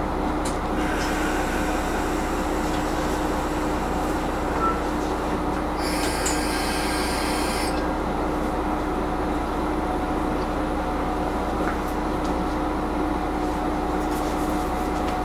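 Diesel railcar of the Hitachinaka Seaside Railway running, heard from inside the car: a steady engine and drivetrain hum. About six seconds in, a high hiss lasts for about two seconds.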